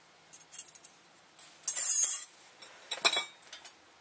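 Small metal brake-pad hardware clips clinking against each other as they are handled and sorted by hand: a few short, light clinks, the loudest about two seconds in.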